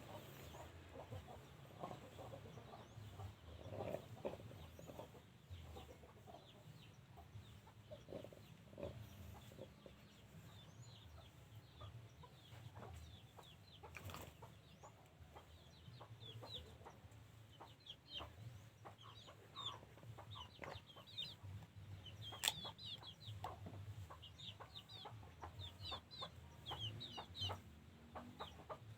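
Chickens clucking faintly, with many short high peeps, thicker in the second half.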